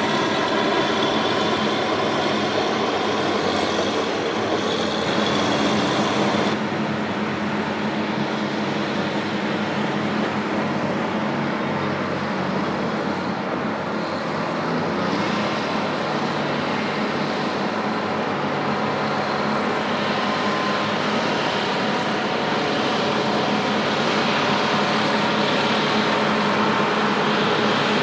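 Heavy diesel earthmoving machinery running steadily under load, with the engine drone and the scrape and clatter of work mixed together; the sound changes abruptly about six seconds in.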